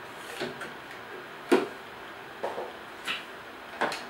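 Bundles of banknotes being handled and pushed into the slots of a currency box: a series of five or six short knocks and papery rustles, the loudest about a second and a half in.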